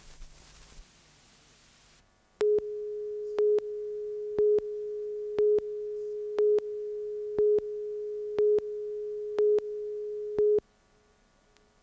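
Broadcast videotape countdown leader tone: a steady mid-pitched tone with a louder pip on each second of the count, nine pips in all, cutting off suddenly near the end. The first couple of seconds hold only faint tape hiss.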